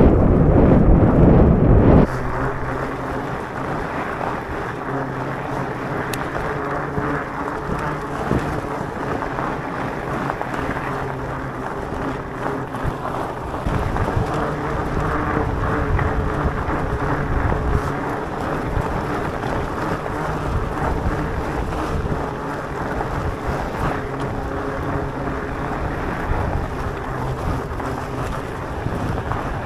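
Electric mountain bike being ridden on a gravel road: tyre noise and wind on the microphone, with a steady low hum under it. A heavy wind rumble at the start drops away abruptly about two seconds in.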